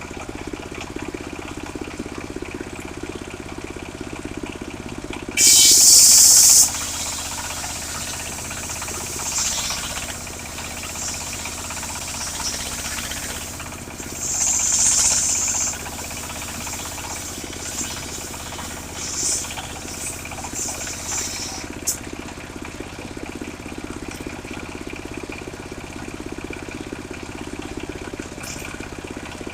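Engine of a portable circular sawmill running steadily, with short high-pitched bursts as the saw blade works the log: the loudest about five seconds in, lasting just over a second, another around fifteen seconds in, and a few shorter ones.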